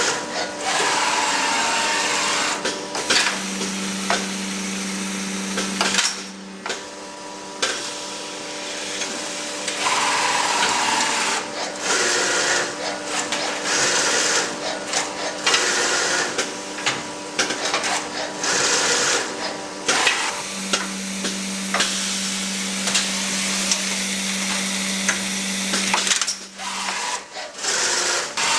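A Filotec CNC scoring machine for printed circuit boards running an automatic load-and-score cycle. A steady motor hum comes and goes in long stretches, and bursts of hiss come and go about once a second.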